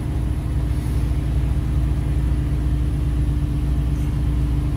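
Steady low drone of a semi-truck's engine and road noise heard inside the cab while cruising at highway speed.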